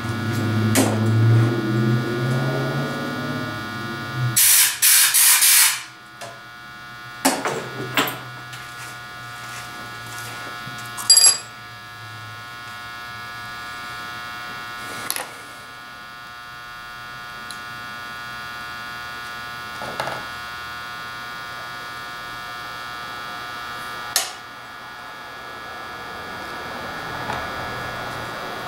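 A low drone for about four seconds, then a burst of compressed air from a blow gun lasting about a second and a half, used to blow out a stove generator part. After it come a few light clinks and taps of metal tools over a steady electrical hum.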